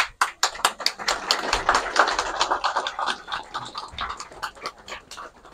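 Crowd applauding: many hands clapping, strongest in the first couple of seconds, then thinning and dying away near the end.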